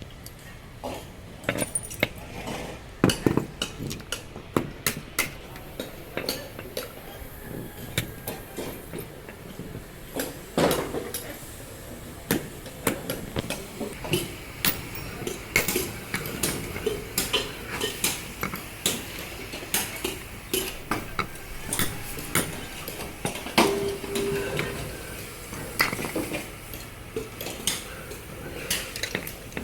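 Irregular metallic clinks and knocks from scrap compressor parts being struck and handled, several a second at times, with a brief ringing tone about three-quarters of the way through.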